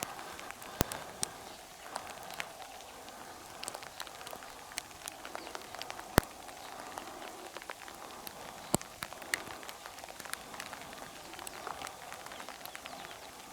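Rain falling steadily, with irregular sharp taps of drops landing close by.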